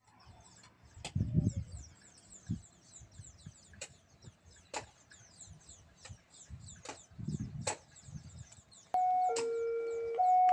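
Railway level-crossing warning alarm starting up about nine seconds in: a loud two-tone chime alternating high and low about once a second, signalling an approaching train. Before it, only faint background with a few low thumps.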